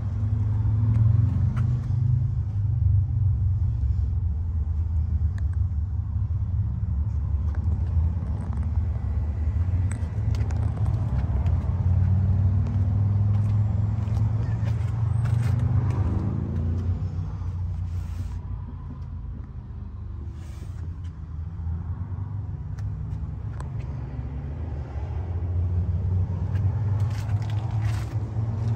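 A Toyota Tundra's 4.7-litre V8 idling steadily with a low, even hum, and a few small clicks in the last third.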